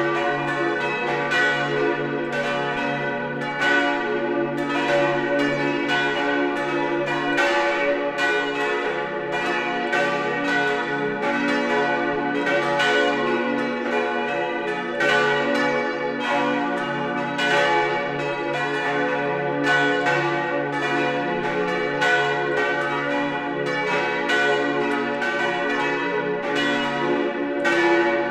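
Full peal of a church's bells, the main peal tuned d', f♯', a', b', ringing together. Overlapping strokes come about twice a second over a continuous ringing hum.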